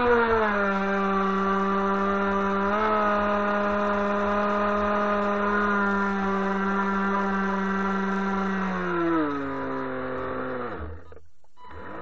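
Small RC boat motor running steadily under the load of towing another boat on a line, a whine with several overtones that drops in pitch just as it starts, then winds down and cuts off near the end, with a brief burst of throttle just after. Water rushes and splashes along the hull throughout.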